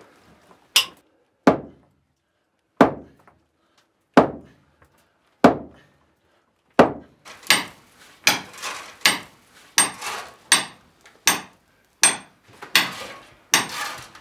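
A hand hammer striking a steel chisel into rock, by hand, with a metallic ring on each blow. The blows come slowly and unevenly at first, then from about halfway through in a quicker, steady rhythm of roughly three blows every two seconds.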